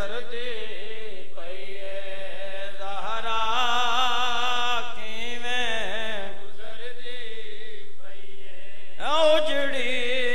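A reciter's voice chanting a noha, the Shia lament for Bibi Fatima Zahra, in long drawn-out wavering notes. Short breaks fall between the phrases, and a new phrase starts a little louder near the end.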